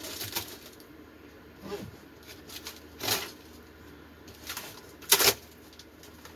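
Packing material being handled and pulled about: a series of short rustles and scrapes, the loudest about five seconds in.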